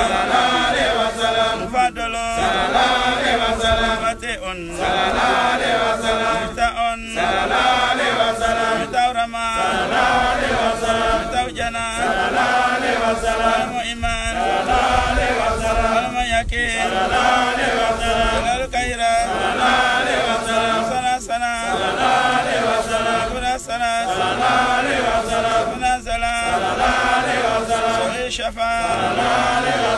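Men's voices chanting an Islamic litany of Arabic devotional names in a steady rhythm. There is a short break about every two and a half seconds.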